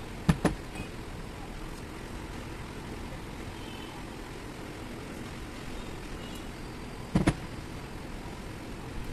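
Two quick double clicks of metal engine parts knocking against the aluminium cylinder head as they are handled and set in place, one just after the start and one about seven seconds in, over a steady low background noise.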